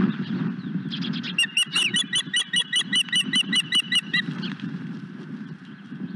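Osprey calling: a rapid series of about sixteen sharp, whistled chirps, some five a second, starting about a second in and stopping near four seconds, over a steady low background noise.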